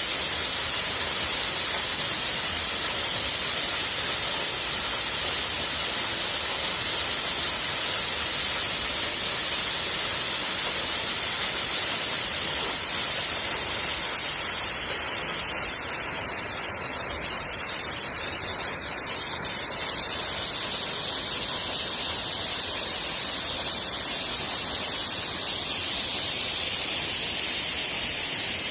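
Waterfall: a steady, even rush of falling water, strongest in its high hiss.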